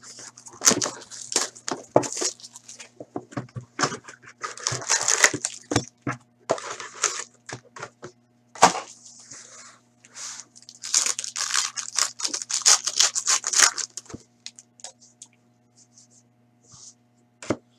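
A box of Panini Rookie Anthology hockey cards being opened and its card packs torn open and handled, in irregular bursts of tearing, crinkling and rustling with a few sharp clicks. It dies down to a few faint rustles in the last few seconds, over a faint steady hum.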